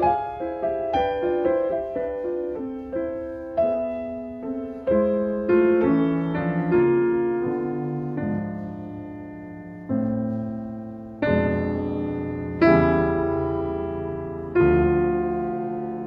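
Solo piano background music: single notes and chords struck and left to ring and fade, moving quickly at first and then slowing to a few chords held for a second or two each.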